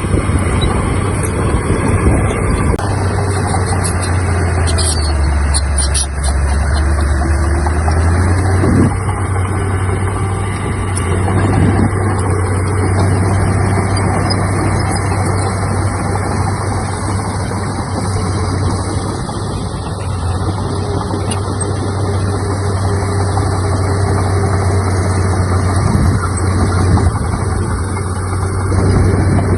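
Heavy diesel engine of earthmoving machinery running steadily. Its low hum drops in pitch for a few seconds about five seconds in, then picks back up near nine seconds.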